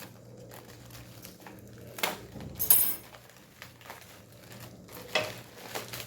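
Packaging being handled: a few short crinkles and rustles, the loudest a little under three seconds in.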